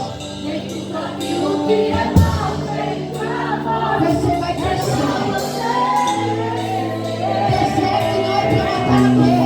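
Music: a sung religious song with a melody over held bass notes and occasional drum hits.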